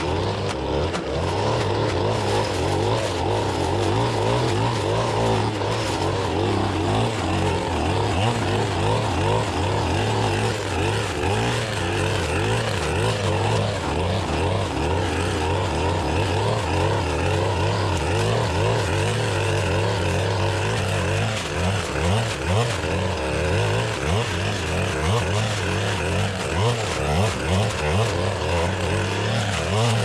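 Stihl FS-561C two-stroke clearing saw running at high revs as it cuts and mulches blackberry bramble, its engine note wavering with the load on the blade and more uneven in the last several seconds.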